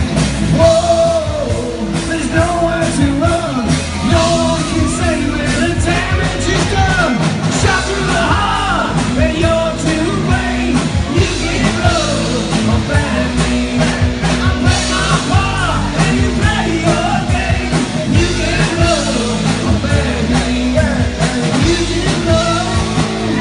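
A live rock band playing: a man singing over electric guitar, bass guitar and drum kit, loud and amplified.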